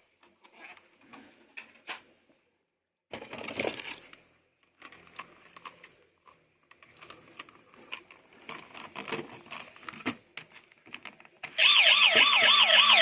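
Faint clicks and rustles of plastic toys and packaging being handled. Near the end a toy vehicle's electronic siren switches on loud, with a fast rising-and-falling wail.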